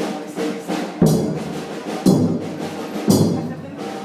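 Music with a heavy drum beat about once a second over sustained pitched tones.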